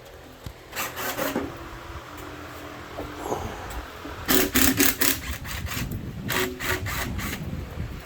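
Cordless grinder run in three short bursts, each a harsh rasping grind. The loudest burst comes about halfway through.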